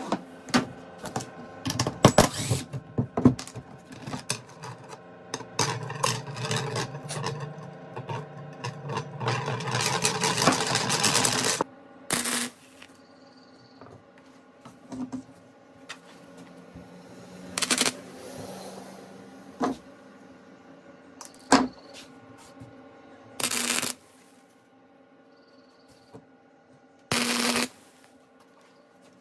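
Small electric arc welder tacking steel wire spokes onto a steel wire ring: a long stretch of crackling arc for the first dozen seconds, then four short crackling tacks spread through the rest, with a few single clicks between.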